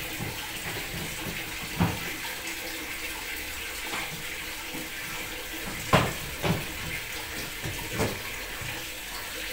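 Water splashing and sloshing in a washing machine's plastic tub as it is scrubbed out by hand, with a few sharp knocks against the tub, the loudest about six seconds in.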